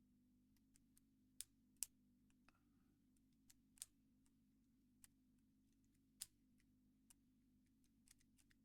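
Faint, irregular clicks of a Squire CP50 combination padlock's number wheels being turned a notch at a time, about a dozen in all, over a faint low hum.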